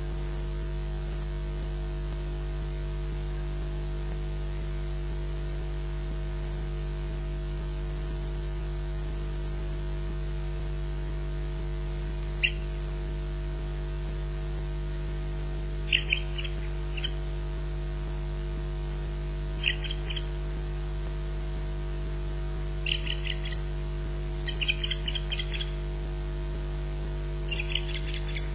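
Steady electrical mains hum in the nest-camera audio. About halfway in, short high osprey warning chirps begin, single and in pairs at first, then in quick little runs toward the end.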